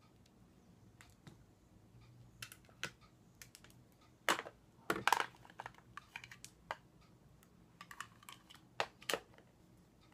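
Irregular small clicks and taps of plastic makeup tubes and cases being handled, with a few louder clacks near the middle and again near the end.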